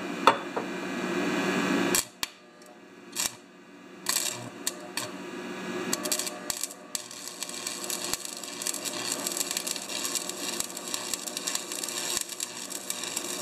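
AC stick welding with a 6013 rod at about 95 to 100 amps: a few short crackling bursts as the arc is struck, then from about six seconds in a steady crackling sputter as a test stroke is run.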